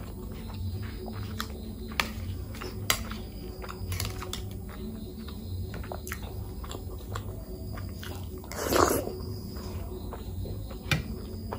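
Close-miked chewing and mouth sounds of a person eating, with scattered sharp clicks and smacks over a steady low hum. A louder noise lasting about half a second comes about nine seconds in.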